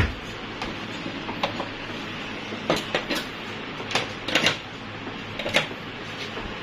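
Powered audio mixer amplifier with a steady low mains hum and hiss, broken by scattered clicks and knocks as the mixers and their cables are handled.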